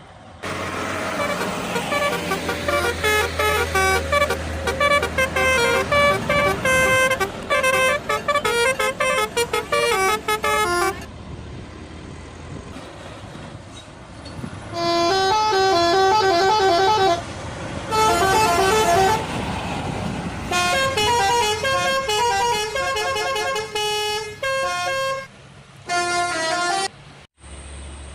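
Telolet bus horns playing quick stepped melodies of several notes, in a string of separate bursts with breaks of traffic noise between them.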